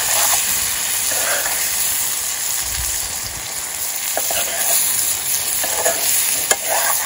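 Chopped black taro stems and smoked pork sizzling in oil in an iron kadai while a steel ladle stirs them, with a few sharp clicks of the ladle against the pan in the second half. The taro stems are frying until they soften.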